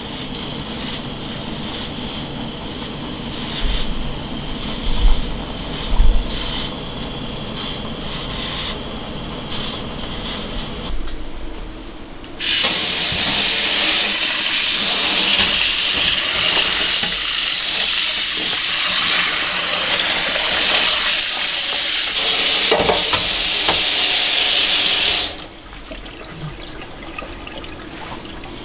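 Water running hard from a tap, turned on abruptly about halfway through and shut off suddenly some thirteen seconds later. Before it, quieter kitchen handling noise with a few soft thumps.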